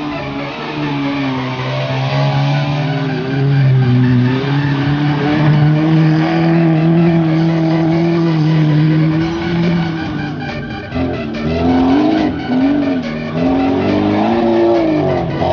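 Amateur rally cars' engines revving hard on a dirt course. The engine note holds fairly steady at first, then repeatedly rises and falls from about ten seconds in as the cars accelerate and lift through the turns.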